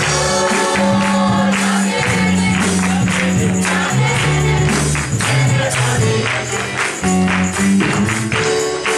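Live church worship music: a choir singing over a band, with a steady shaken-percussion beat and held bass notes that change every second or two.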